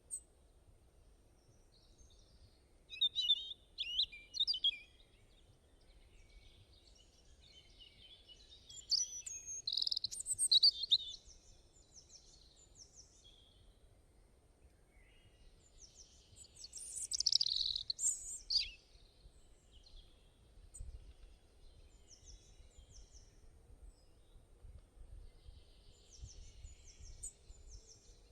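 Small birds chirping and twittering in several bursts of quick, high chirps and trills, with fainter chirps in between.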